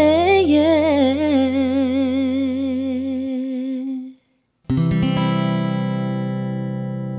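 Background song ending: a singer holds the last note with vibrato over a steady backing, cutting off about four seconds in; after a brief silence, a final strummed acoustic guitar chord rings out and slowly fades.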